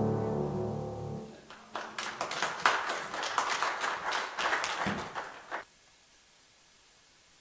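Last chord of a grand piano piece dying away, then a congregation applauding for about four seconds, cut off abruptly.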